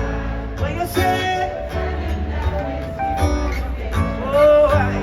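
Live reggae band playing, with guitar and bass over a steady beat and singing over it.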